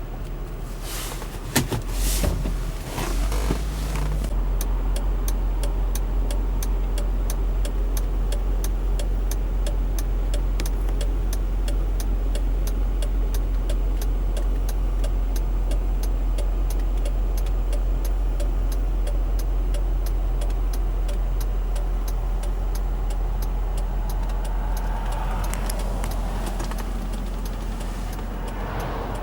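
Mercedes-Benz ML SUV driving off-road, with a steady low engine and driveline rumble. A few knocks and bumps come in the first few seconds, then a fast, even ticking runs on over the rumble.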